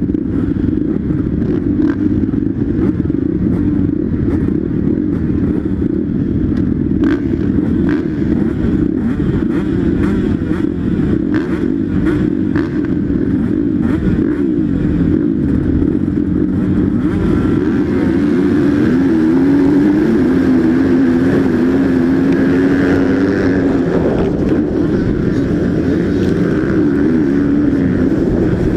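Several motocross bike engines running together at the start gate. About eighteen seconds in, the onboard bike's engine climbs and drops in pitch again and again as the pack accelerates away off the start.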